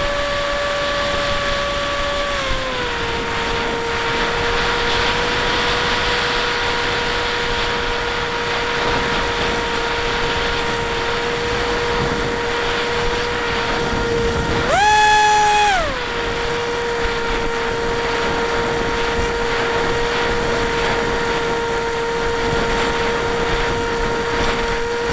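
Bixler 1 RC plane's electric motor and pusher propeller whining steadily, heard from the onboard camera with air rushing past. The pitch eases down a little about two seconds in, then jumps up sharply for about a second a little past halfway before settling back, as the throttle is eased and then briefly opened.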